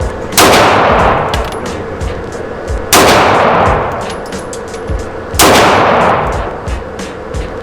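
Three pistol shots in slow, deliberate fire, about two and a half seconds apart, each ringing out in a long fading tail. Fainter sharp cracks from other shots fall in between.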